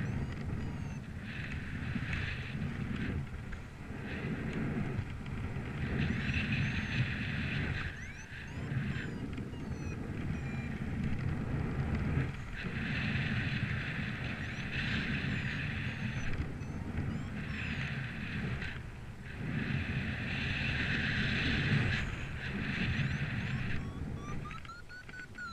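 Gusty wind buffeting the microphone with a constant low rumble, and a hiss that swells and dies away every few seconds as gusts come and go.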